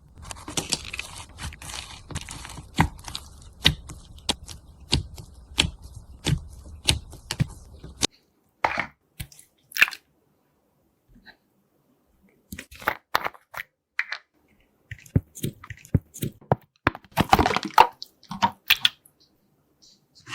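Slime being handled and pressed by hand: a run of short crackling pops and squishes. About eight seconds in the background hum drops away and the pops come in sparser clusters with silent gaps.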